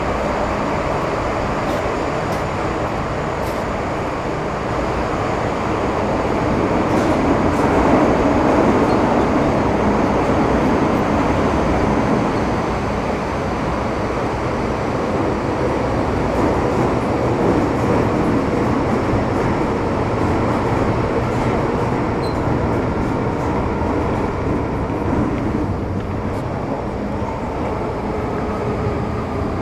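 MTR Metro Cammell M-Train EMU with GEC GTO chopper traction running at speed in a tunnel, heard from inside the car: steady rumble and wheel-on-rail running noise, with faint whining tones that shift in pitch near the end.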